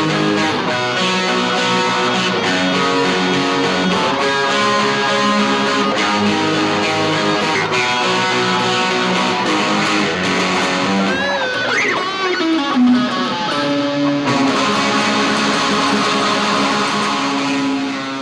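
Guitars playing an original instrumental piece, with held strummed chords and a note bent up and down about eleven to thirteen seconds in.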